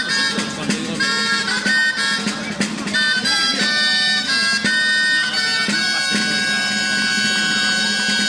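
Bagpipe folk dance music: a quick melody over a steady low drone.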